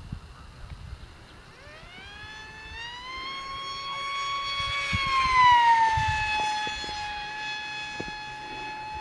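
Multiplex FunJet RC model jet's electric motor and pusher propeller whining in flight as it passes by. The whine climbs in pitch and grows louder from about two seconds in, is loudest a little past the middle, then drops in pitch as the plane goes past and holds steady.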